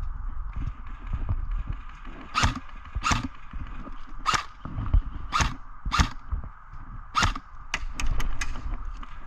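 Airsoft guns firing single shots: about six sharp cracks spaced half a second to a second apart, then four in quick succession near the end, over a low rumble of handling or wind noise.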